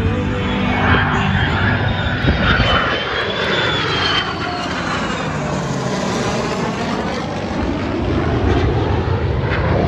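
Jet engines of a formation of fighter jets passing overhead in a loud, steady roar. A high whine rises to about four seconds in and then drops away as they go by.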